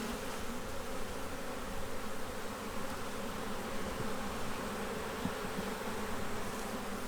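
Honey bee colony buzzing steadily: the hum of many bees on the frames of an open hive.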